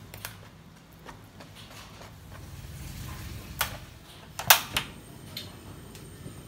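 Portable gas stove being lit: two sharp clicks close together about four and a half seconds in, the igniter knob being turned, after a few softer taps and knocks.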